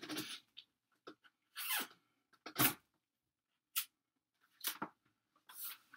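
A string of short, scattered breathy and rustling noises, spaced about half a second to a second apart, from a person handling a bike saddle on its seat post close to his face.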